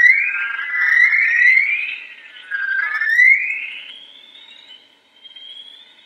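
Recording played as the sound of the northern lights: eerie whistling tones that glide up and down and overlap, with a long rising sweep about three seconds in. It then thins to a faint high tone that fades near the end.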